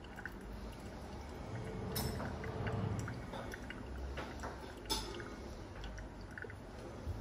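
Brewed coffee trickling from a Hario Switch dripper into its glass server during the release phase, a soft liquid drip with a few small clicks, the sharpest about five seconds in.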